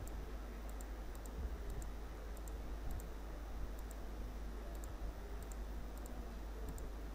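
Computer mouse clicking: light clicks in quick pairs, about one or two pairs a second, over a steady low hum.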